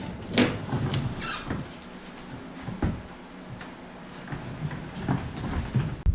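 Scattered knocks and clunks with a short creak or squeak, from heavy machinery being winched and rolled along wooden ramps and rollers.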